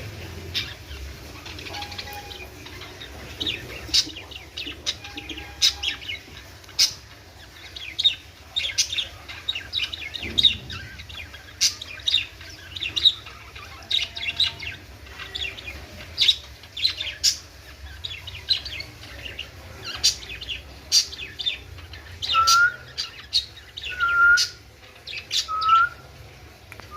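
Budgerigars chirping and chattering with many short, high chirps. Near the end come four short, clear whistles, about a second and a half apart.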